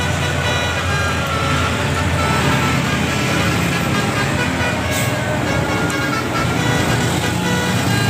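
Telolet Basuri multi-tone bus horn playing a tune of short stepped notes over a steady low engine rumble.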